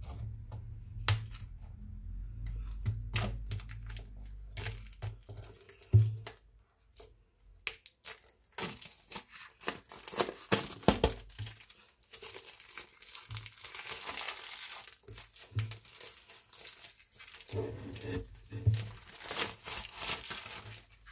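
Plastic shrink-wrap being torn open and peeled off a hardcover book: scattered clicks and taps with one sharp knock about six seconds in, then steady crackling and crinkling of the film from about nine seconds on.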